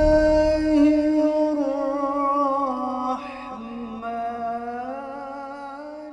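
Intro background music: a wordless vocal line of slow, drawn-out notes gliding from one pitch to the next, fading away toward the end.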